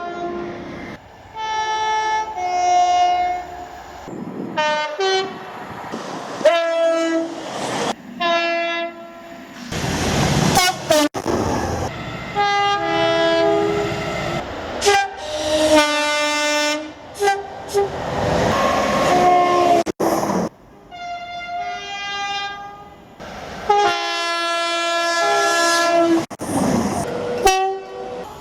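A string of different train horns, cut one after another: about ten soundings, mixing short toots and longer held blasts, some of them two-tone, sounding one pitch and then the other. Between some of the horns comes the rush and wheel clatter of passing trains.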